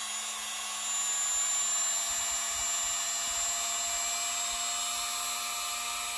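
Tacklife corded variable-speed rotary tool running unloaded at speed setting 2 of 6: a steady high motor whine, a little louder from about a second in.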